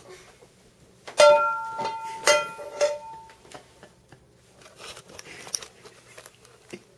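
Plucked string notes, struck three times with sharp attacks and left to ring out, followed by a few faint clicks.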